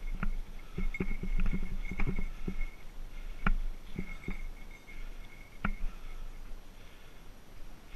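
Mountain bike rolling over a bumpy dirt single track: a low rumble with frequent knocks and rattles from the bike and camera mount, thick in the first couple of seconds, then two sharp single knocks, and a thin high tone that comes and goes.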